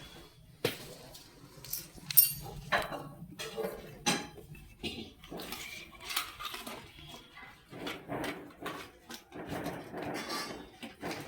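Irregular metallic clinks and knocks, like tools and small metal parts being handled and set down, during work on an electric scooter battery pack.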